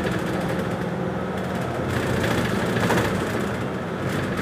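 City bus running along the road, its engine hum and road noise heard from inside the cabin, steady throughout.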